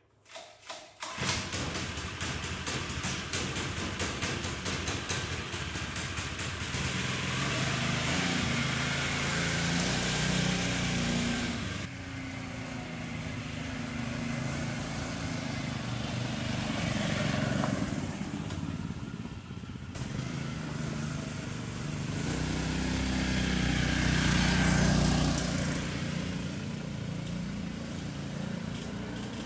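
168cc 6.5HP single-cylinder four-stroke engine of a homemade cargo tractor starting about a second in and running with a rapid even beat, then driving past, loudest near the end as it goes by and fading away.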